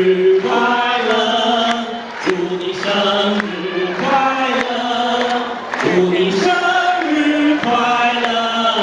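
Music: a slow melody of long held, choir-like vocal notes with no beat.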